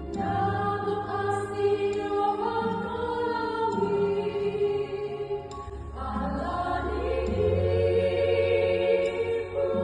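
Women's church choir singing in harmony, holding long notes; one phrase ends about five and a half seconds in and the next begins.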